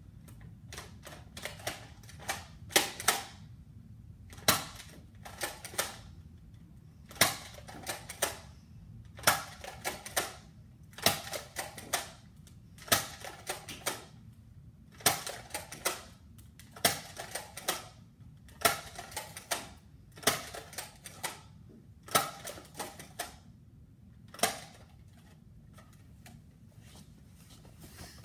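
Nerf dart-tag revolver blaster being cocked and fired again and again. Each shot gives a small cluster of sharp plastic clicks and snaps, about every two seconds, some two dozen times. The clicking stops a few seconds before the end.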